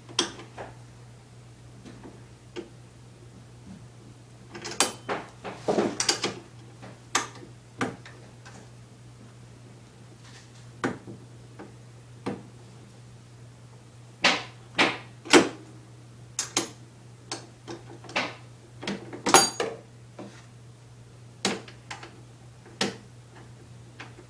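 Scattered clicks, knocks and rattles of lawnmower parts being handled and fitted during assembly, in irregular clusters, over a steady low hum.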